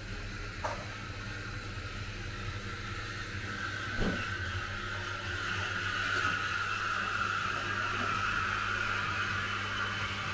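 Steady electrical hum with a fan-like whir that grows louder partway through, and a single knock about four seconds in.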